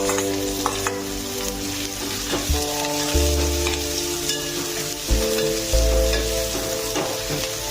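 Chopped capsicum sizzling in hot oil in a pan with ginger and garlic, stirred with a few scraping clicks of a spoon against the pan.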